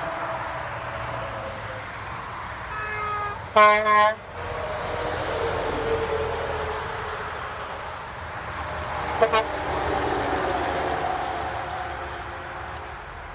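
Hadley dual air horns on passing dump trucks: a loud blast in two quick pulses about three and a half seconds in, and two short toots at about nine seconds. Between them comes the rumble and tyre noise of trucks and traffic on the highway.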